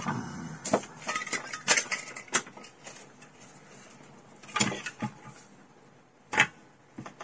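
Scattered small clicks and knocks of tools and parts being picked up and set down, in irregular bunches, with the loudest knock near the end.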